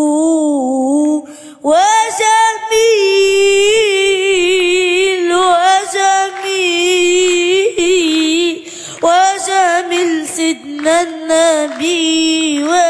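A boy singing a nasheed in praise of the Prophet into a microphone, in a high voice, drawing out long ornamented notes with a wavering vibrato and taking short breaths between phrases.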